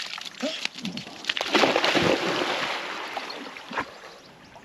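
A dog plunging into lake water and starting to swim: a loud burst of splashing about a second and a half in, fading to lighter sloshing as it paddles away.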